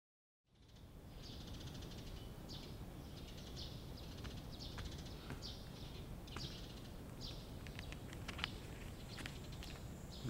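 Birds chirping in short, repeated calls over a steady low background rumble, starting from silence about half a second in.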